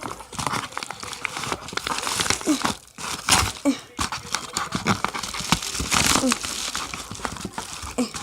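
A package being torn and wrestled open by hand: packaging crinkling and ripping in irregular rustling bursts.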